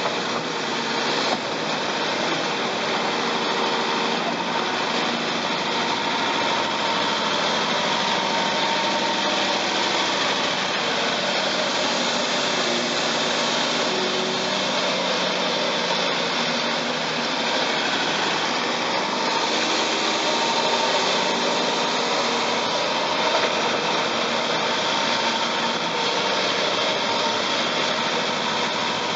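A CAT 352F hydraulic excavator and a CAT D6T bulldozer working in mud, their diesel engines running steadily with a continuous high whine over the engine noise.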